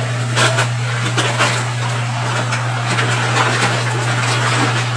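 A steady low electrical-sounding hum with hiss over it, and a few faint light clicks and rustles scattered through it.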